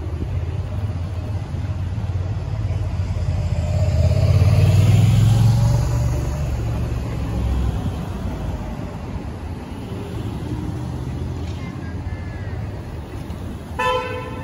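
Road traffic with a steady low engine rumble. A motorcycle passes close by, loudest about five seconds in, with its engine pitch sliding, then fades back into the traffic noise. A short bright beep sounds near the end.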